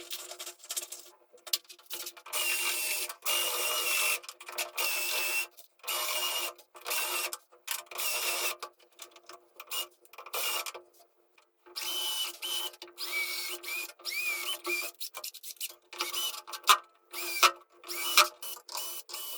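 A small power tool run in short bursts with a high whine that dips a little under load, with clicks and knocks between the bursts.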